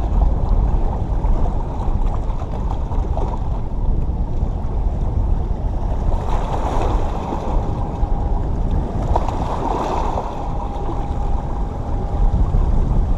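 Steady wind noise on the microphone over waves washing against the rocks of a jetty.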